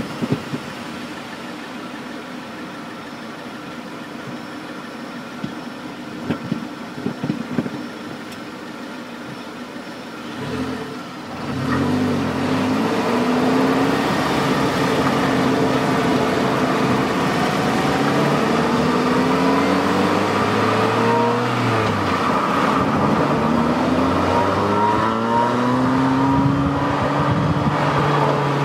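Car exhaust recorded right at the tailpipe: the engine idles steadily, with a few short clicks about six to eight seconds in. Just before halfway the car pulls away, and the exhaust note rises in pitch through several gears, dropping back at each upshift.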